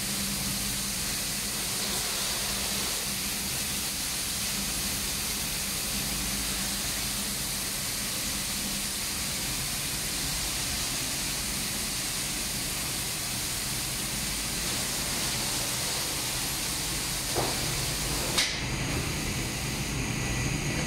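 Steady hiss of air in a powder-coating booth during cleaning for a colour change: a compressed-air lance blowing down the booth floor, with the booth's extraction fan humming underneath. A few short knocks near the end.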